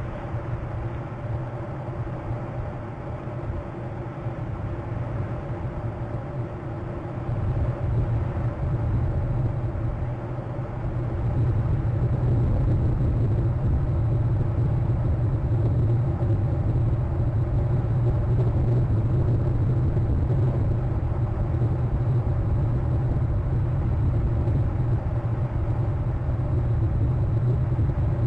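Steady low rumble of a running vehicle engine, growing louder about eleven seconds in and then holding steady.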